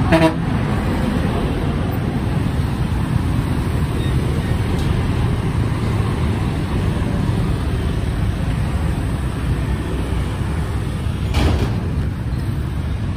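Shibaura V52 compact tractor's diesel engine running steadily under way, with a brief knock about eleven seconds in.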